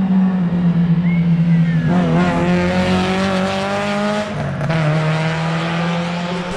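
Rally car engine running at full throttle as the car passes on the special stage and pulls away, the engine note rising as it accelerates, with a break in the note about four and a half seconds in like a gear change.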